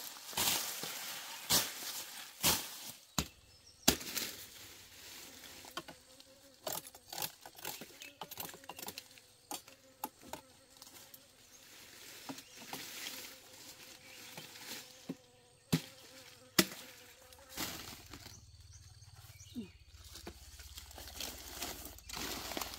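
An insect buzzing steadily close by from about four seconds in until near the end, over rustling and a scattered series of sharp cracks and knocks, the loudest twice.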